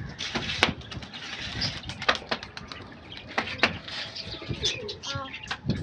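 Domestic pigeons cooing and flapping their wings, with scattered sharp clicks and knocks throughout.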